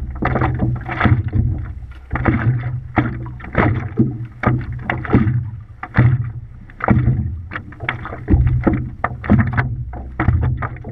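Water splashing and slapping against a stand-up paddleboard and a GoPro housing at the waterline as the board is paddled, in irregular splashes about twice a second over a muffled low rumble.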